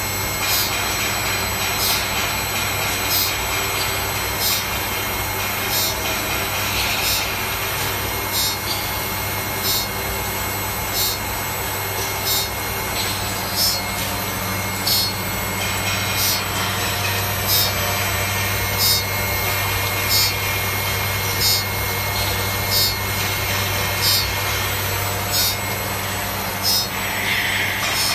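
CNC saw-blade sharpening machine grinding the teeth of an HSS saw blade with a CBN wheel: a steady motor hum under a short, high grinding rasp that repeats about every 1.3 seconds, one pass per tooth.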